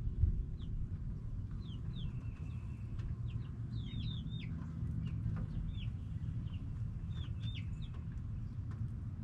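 Backyard chickens calling: a scatter of short, high chirping calls, busiest in the middle, over a steady low rumble.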